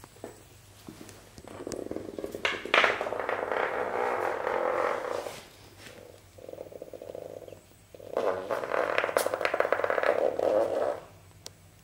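Hexbug Nano toy bug buzzing as its vibration motor drives it rattling across a wooden floor, in two long stretches: one starting about one and a half seconds in, the other about eight seconds in.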